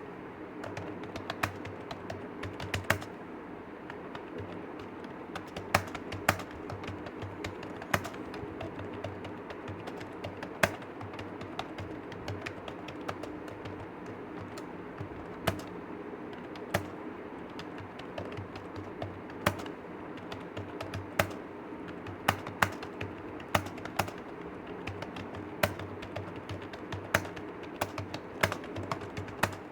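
Computer keyboard being typed on continuously at typing-test speed, about 47 words a minute, with sharper, louder key strikes every second or two. A steady low hum runs underneath.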